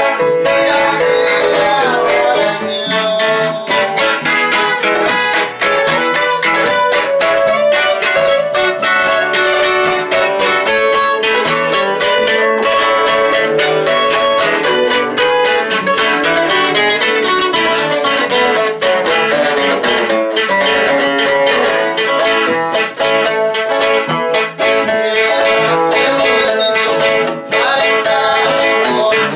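Several guitars played live together, one through a small amplifier, plucking a tune with no break.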